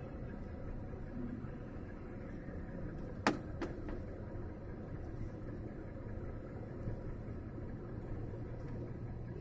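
Steady low drone of a truck's engine and road noise heard inside the cab on a mountain descent, with two sharp clicks a third of a second apart about three seconds in.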